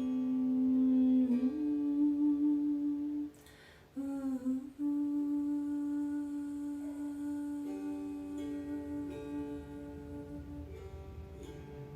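A voice humming long, held notes for sound meditation, stepping up to a slightly higher note about a second and a half in and breaking off briefly around four seconds in before holding a long steady note again.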